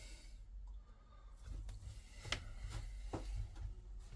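Light clicks and taps from small parts being handled by hand, with two sharper clicks a little under a second apart just past the middle, over a steady low hum.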